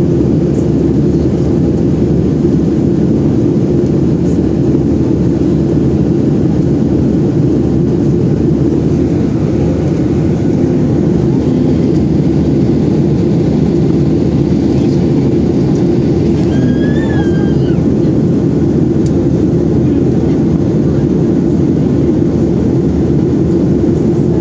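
Steady, loud in-flight cabin roar of a Boeing 737-800 airliner: engine and airflow noise heard from inside the cabin, deep and unchanging.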